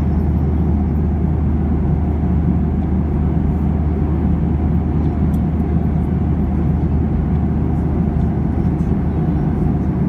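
Steady cabin noise of a jet airliner in flight: the engines and the air rushing past the fuselage heard from a window seat, a constant deep rush with a low hum.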